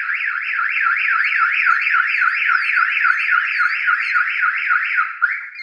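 StarLine A9 car alarm siren sounding in fast rising-and-falling sweeps, about four a second, then cutting off about five seconds in. It was set off by opening the armed car with the mechanical key, the alarm's response to an unauthorised entry.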